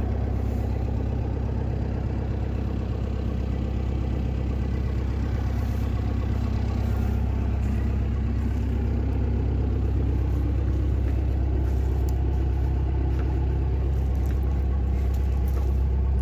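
Engine idling steadily: a constant low hum.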